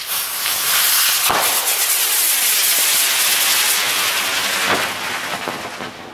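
A 22-year-old East German Silberhütte girandola (rising crown firework) hissing loudly as its driver charges burn and carry it up into the air, with a sharp crack about a second in and a few weaker ones later. The hiss cuts off suddenly at the end.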